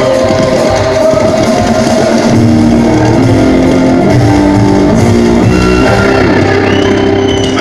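Background music with guitar and drums, a melody of held notes stepping up and down in pitch over a dense, steady backing.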